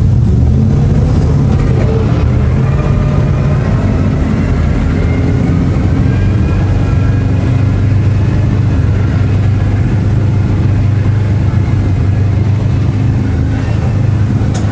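BRDM-2 armoured car's V8 petrol engine running loudly as the vehicle drives off, a steady low drone with a fainter whine above it.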